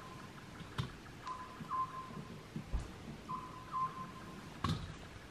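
Small wood fire with sharp crackles and knocks of wood, one louder snap near the end, over a repeating two-note call that sounds in pairs about every two seconds in the background.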